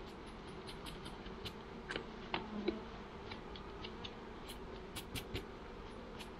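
Honeybees buzzing in a steady hum around an open hive, with scattered light clicks and a few louder taps as the wooden frames are handled, the loudest about two and a half seconds in and again near five seconds.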